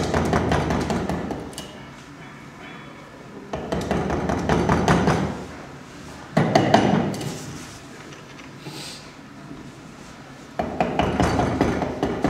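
Wood chisel being struck in bursts of quick taps, chopping out a lock mortice in a softwood timber. Four bursts, with pauses of a second or two between them.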